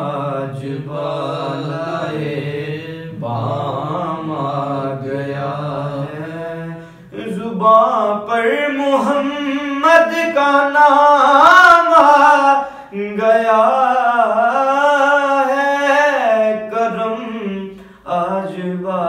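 A man reciting a naat solo in long, held, ornamented notes. About seven seconds in the singing gets louder and climbs higher, then eases back down, with a short break near the end.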